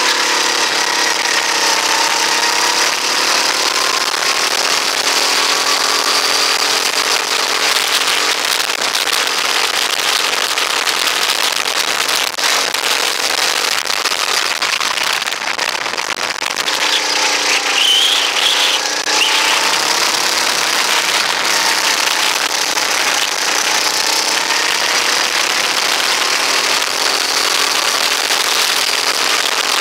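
Rental go-kart engine running at racing speed. Its pitch falls and climbs again as the kart slows for corners and accelerates out of them.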